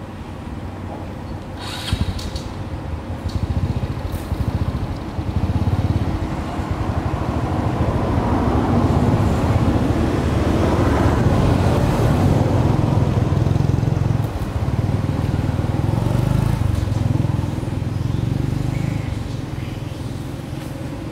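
A motor vehicle's engine running nearby, a low steady drone that grows louder toward the middle and fades again near the end as it passes.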